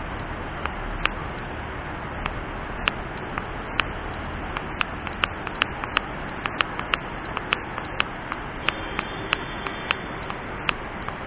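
Steady rushing noise of a fast mountain river, with irregular sharp clicks over it that come more often from about four seconds in.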